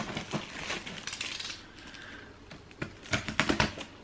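A cardboard shoebox and its packaging being handled: scattered light knocks, taps and scrapes, with a quick run of sharper taps about three seconds in.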